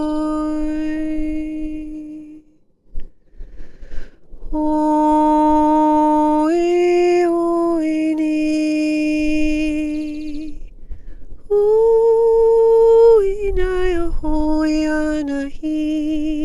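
A woman's voice toning long sustained vocal notes, each held for several seconds, stepping up and down in pitch with short breaths between them and a few shorter, wavering notes near the end.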